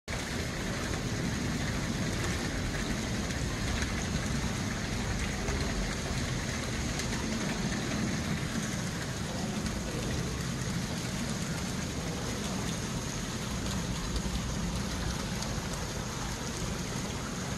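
Falling water splashing steadily into an ornamental pond, a continuous even patter with no breaks.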